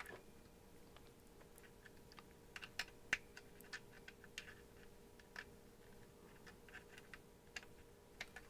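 Faint, scattered small clicks and ticks of hands fitting a display module's connector and handling plastic and metal parts, over a faint steady hum.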